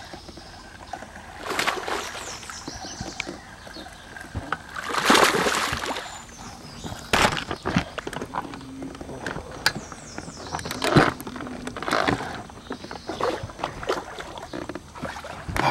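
Water splashing and sloshing in irregular bursts as a topwater frog lure is worked over a weedy pond, the loudest splash about five seconds in.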